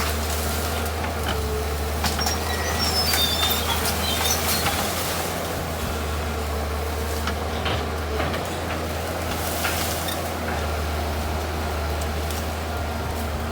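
Excavator's diesel engine running steadily, with scattered sharp knocks and cracks and a few short high squeaks about three seconds in.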